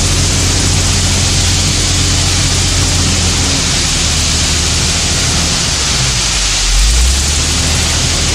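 An engine running under a loud, steady hiss, its low hum shifting in pitch about five to seven seconds in.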